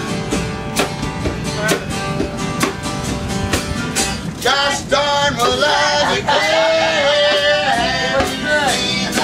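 Acoustic guitars strumming a steady folk-rock rhythm, with singing coming in about four and a half seconds in.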